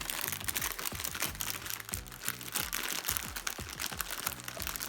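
Plastic packaging crinkling and crackling as a TV remote control is unwrapped, over background music.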